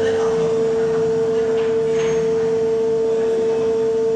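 Concrete flexural testing machine running under load with a steady, unchanging high-pitched hum as it bends a concrete beam.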